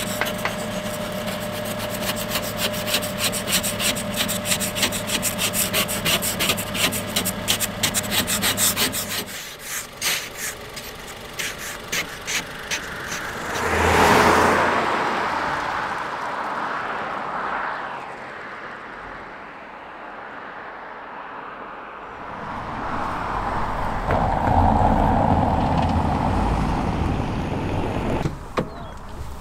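Ice scraper scraping frost off a car windshield in quick repeated strokes, stopping about nine seconds in. Later a loud rushing sound swells and fades about halfway through, with a second, lower swell near the end.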